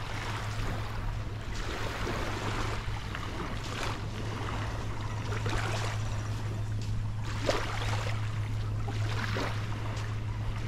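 Small waves washing and fizzing on a sandy beach, with irregular swells of hiss, over a steady low hum.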